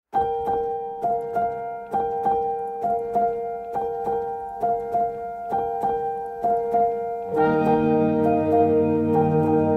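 Background music: a keyboard playing a simple line of repeated notes, about two a second, over held tones. A fuller, lower accompaniment comes in about seven seconds in.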